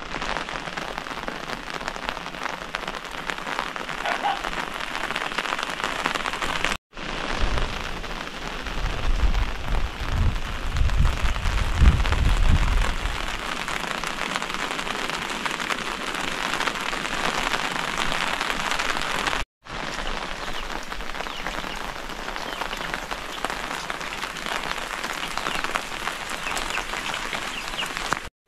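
Steady rain falling, an even dense patter. Between about 8 and 13 seconds a low rumble swells underneath and fades. The sound cuts out for an instant twice.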